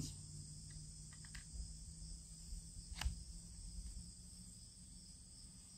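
Faint, steady high-pitched chirring of insects, with a single faint click about three seconds in.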